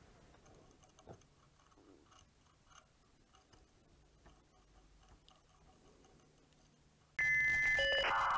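Faint, irregular ticking from a Curie-point heat engine: its little nickel-alloy wire loop swings to touch a neodymium magnet and falls away again as the candle flame heats it past its Curie point. About seven seconds in, loud electronic music starts abruptly and covers it.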